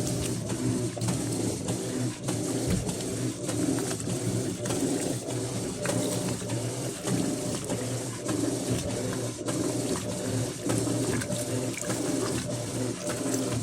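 Electrolux LF10 top-load washing machine running with a load of blankets: a steady motor hum with an uneven, wavering pulse over it.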